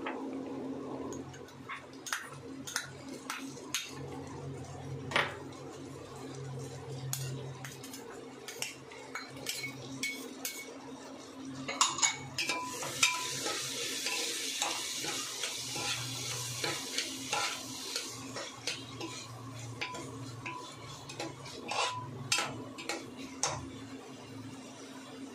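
Steel spoon clinking and scraping against an aluminium pressure cooker as tomatoes, spices and diced potatoes are stirred in hot oil. A soft sizzle of frying is heard, strongest a little after the middle.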